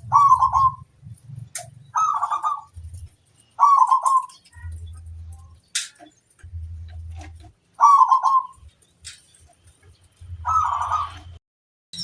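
Zebra dove (perkutut) cooing: short, trilled, rolling coo phrases repeated about every two seconds, the song used as a masteran to prompt other perkutut to sing.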